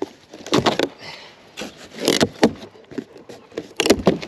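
A large cardboard shipping box being handled and opened: a handful of short, irregular scrapes, rustles and knocks.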